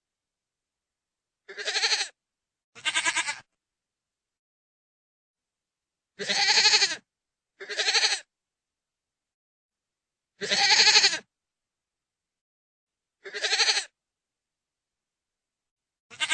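Goat bleating: six separate quavering calls of half a second to nearly a second each, spaced by dead silence, with another call starting right at the end.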